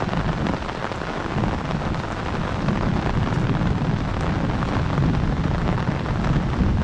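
Heavy rain pouring steadily, with a low rumble underneath that swells after the first couple of seconds.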